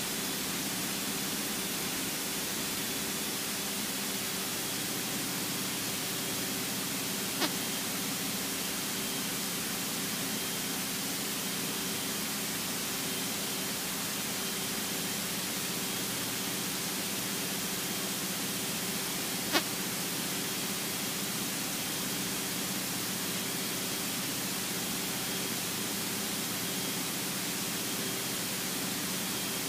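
Cessna 172 cabin noise: a steady hiss with the engine's low drone underneath, and two brief clicks about 7 and 20 seconds in.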